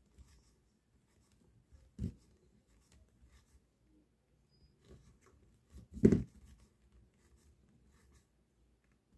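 Crochet hook and terlenca yarn rubbing and scratching faintly as stitches are worked, with two soft thumps, one about two seconds in and a louder one about six seconds in.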